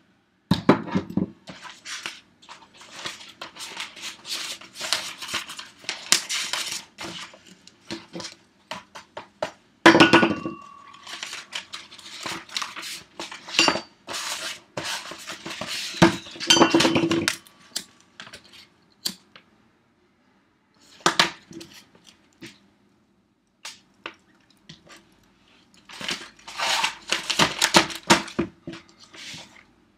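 Clattering, clinking and knocking of a wine glass, a bottle and paper being handled and set down on a tabletop, in several bursts with a lull after the middle. A short ringing tone sounds about ten seconds in.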